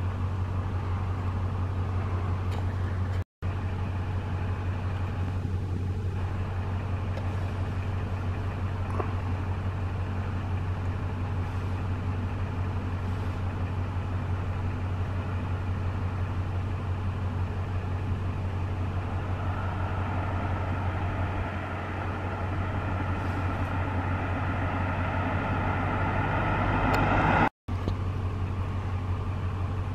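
An engine runs steadily with a strong low hum. In the last third a second, higher engine sound grows steadily louder, then breaks off abruptly at a cut.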